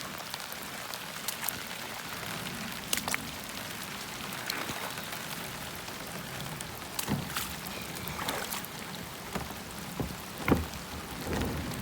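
Heavy rain falling steadily, with sharp drop impacts close to the microphone and a few louder splashes in the second half.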